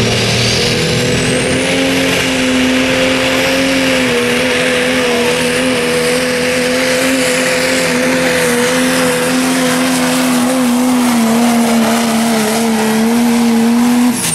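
Turbo-diesel pulling pickup's engine held at full throttle under the load of a pulling sled: one high-revving drone holding nearly steady pitch, over the hiss of tyres spinning in dirt. It drops away abruptly near the end.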